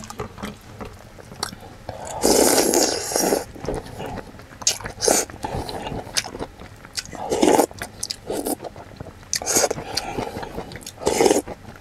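A person slurping soup from a wooden spoon and chewing. There are several noisy slurps a few seconds apart, the longest about two seconds in, with small clicks and mouth sounds between them.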